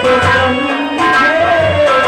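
A woman singing live into a microphone through a PA, her voice gliding up and down, over drum beats about twice a second and instrumental backing.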